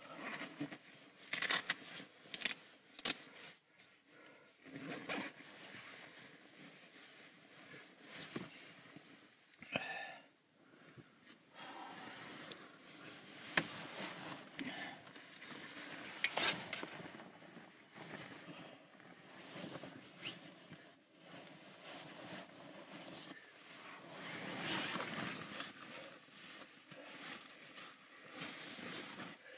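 A down jacket's zipper being undone, then the irregular swish and rustle of nylon fabric as the jacket is pulled off and handled, with small clicks.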